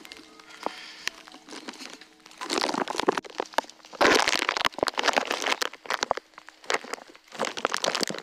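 Irregular bursts of rustling and crunching noise with sharp clicks, loudest in the middle.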